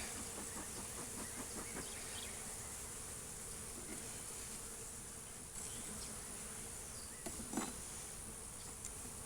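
Honeybees buzzing steadily around an opened hive, with one short knock about three-quarters of the way through.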